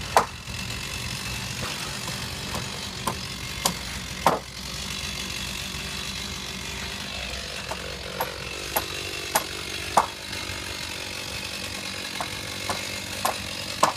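Hammer blows on framing lumber, sharp single strikes in small clusters about half a second apart, the hardest just after the start and about ten seconds in. Under them a small engine idles steadily, the chainsaw waiting to cut.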